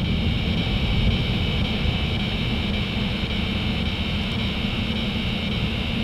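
Steady low rumble of interstate traffic, with a steady high-pitched chorus of evening insects singing over it.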